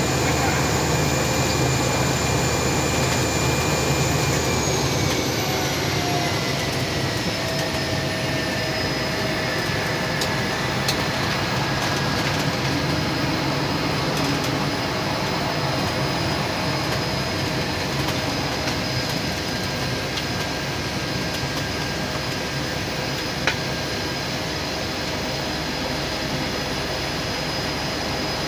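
Cabin noise from a Cessna 208 Caravan's single Pratt & Whitney PT6A turboprop engine running: a steady drone with a high turbine whine. The whine slides down in pitch a few seconds in and then holds steady. A single sharp click comes near the end.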